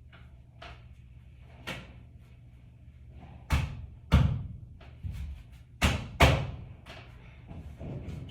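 A series of sharp knocks and thuds at an irregular pace, the loudest coming in two close pairs.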